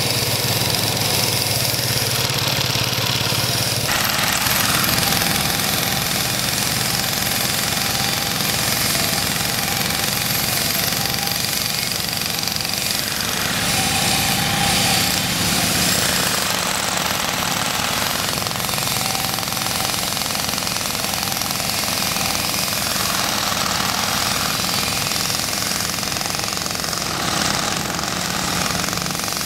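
Road-work machinery: a walk-behind concrete cutter's Kubota diesel engine running as its blade saws the road surface at first, then an electric demolition breaker hammering into asphalt with rapid, continuous blows.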